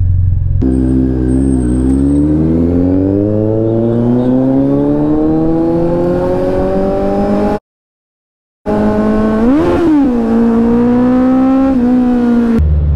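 Kawasaki Z900 inline-four engine pulling hard under acceleration, its pitch rising steadily for several seconds. The sound cuts out completely for about a second. It comes back with a quick rev up and down, then drops to a deep low rumble near the end as the throttle closes.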